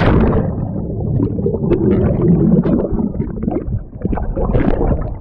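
A jump into a swimming pool, its splash just as it starts, then muffled rumbling and bubbling heard from underwater, with small scattered clicks of churning water.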